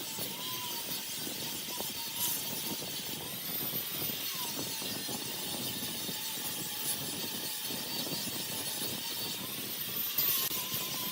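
Wood lathe running with a tool cutting the spinning wood: a steady hiss with a faint motor whine that dips and recovers a few times.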